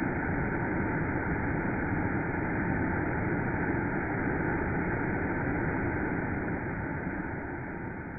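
Waterfall spilling over a wide rock ledge into a creek: a steady rush of falling water that begins to fade near the end.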